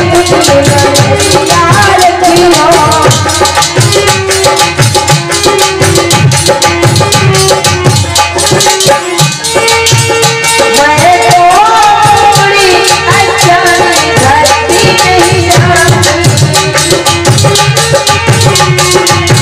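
Live devotional folk music: hand drums and a shaken rattle keep a fast, steady beat under a melodic line that carries the tune.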